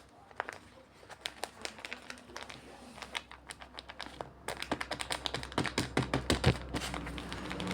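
A rapid, irregular run of small taps and clicks, like something being handled and tapped on a hard surface. It grows denser and louder about halfway through.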